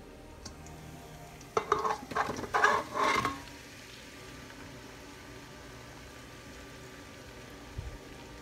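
A spoon scrapes and clatters against a metal pot of small spiced potatoes for a couple of seconds, starting about a second and a half in. Afterwards the potatoes keep sizzling faintly as they fry.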